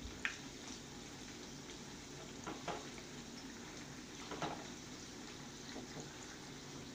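Oil sizzling steadily as slices of alu vadi deep-fry in a kadhai, with a few light knocks as a slotted spoon turns them in the pan.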